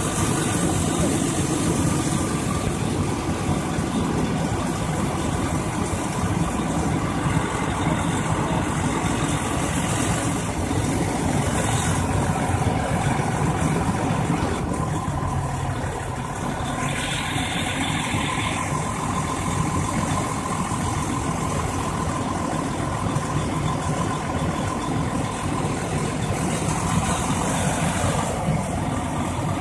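Fire engine's diesel engine running steadily at close range, driving its water pump for the hose lines.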